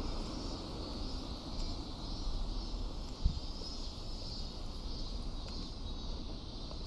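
Outdoor background noise: a steady low rumble under a faint high hiss, with one short thump a little over three seconds in.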